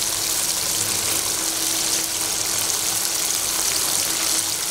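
Chicken momos deep-frying in hot oil: a steady, dense sizzle and bubbling of the oil around the dumplings, with a faint steady hum underneath.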